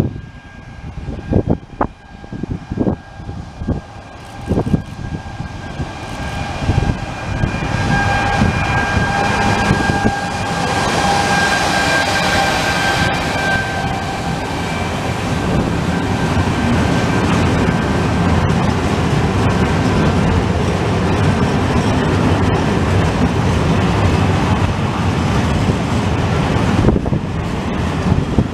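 A freight train passing close by: the locomotive comes past with a steady whine, strongest as it goes by, followed by a long string of open freight wagons rolling past with a steady wheel-on-rail rumble. Wind buffets the microphone in the first few seconds.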